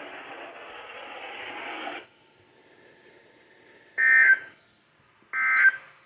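Weather-radio hiss that cuts off about two seconds in. After a short pause come two short bursts of warbling SAME digital data tones about a second and a half apart. These are the end-of-message code that closes the NOAA Weather Radio required weekly test.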